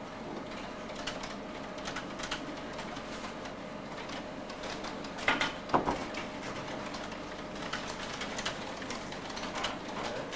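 Computer keyboard keys clicking in irregular bursts of typing over a steady room hum, with two louder knocks a little after halfway.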